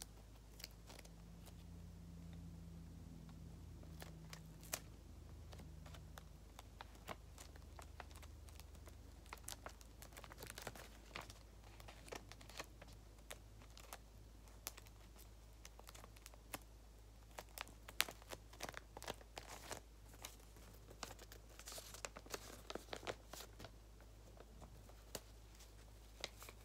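Faint, scattered crinkling and rustling of a taped paper squishy being stuffed, the crackles coming thicker from about ten seconds in.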